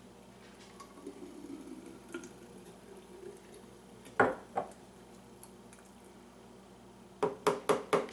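Thick smoothie pouring from a Vitamix blender container into a glass mason jar, a faint low slosh. Two sharp knocks about four seconds in, then near the end a quick run of knocks, about four a second, as the upturned container is knocked against the jar to shake out the last of the thick smoothie.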